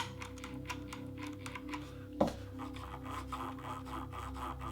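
Faint, irregular clicking of a mechanical keyboard's Razer Green clicky switches and keycaps as the keyboard is handled and keys are pressed, with one louder knock about two seconds in.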